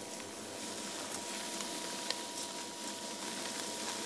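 Dry risotto rice trickling and pattering into a hot stockpot of softened onion and mushrooms, over the steady hiss of the pan cooking, with a faint steady whine behind it.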